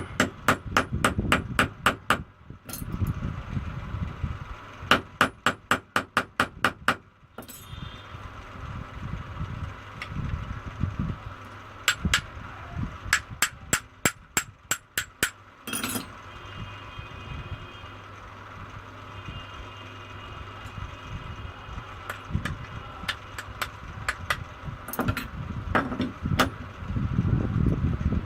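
Quick light hammer taps on a metal part, in runs of several strikes at about four or five a second with short pauses between runs.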